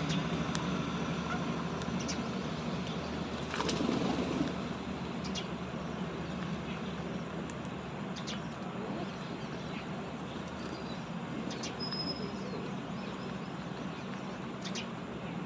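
Steady outdoor background noise with a low hum, a few short clicks and a brief high bird chirp about three-quarters of the way through.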